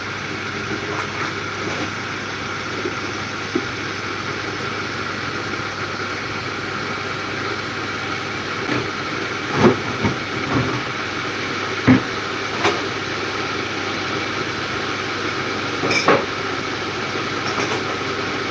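Steady droning hum of a kitchen appliance running, with a few sharp knocks and clinks of kitchenware, the loudest about ten and twelve seconds in.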